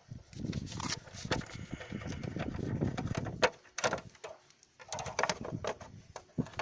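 Irregular clicks and knocks of hands working at a motorcycle's air filter box cover to open it, with a brief quiet pause partway through.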